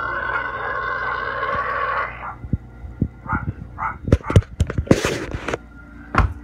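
Hungry pig squealing steadily behind a closed door, the squeal breaking off about two seconds in. Then come a few short grunts and a string of sharp knocks and bumps, one louder scuffling burst among them.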